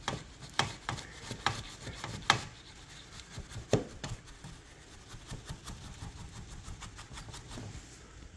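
Horsehair brush scrubbing the circuit board and heatsink fins of an Icom IC-2KL amplifier wet with isopropyl alcohol, to work the grime off: a soft scratchy rubbing broken by irregular light ticks, busier in the first couple of seconds.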